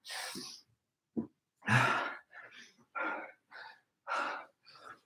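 A man breathing hard after a cardio interval, a string of irregular heavy breaths and puffing exhales as he gets his breath back.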